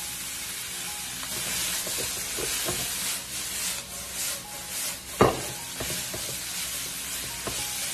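Bean sprouts sizzling as they are stir-fried over high heat in a stainless-steel wok, with more cooking oil poured in at the start and a spatula tossing and scraping them. One sharp knock about five seconds in.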